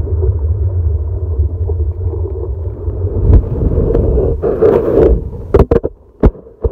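Muffled rumble of surf and churning water, recorded underwater by a phone's microphone as the phone tumbles in the waves. Several sharp knocks near the end as the phone is tossed about.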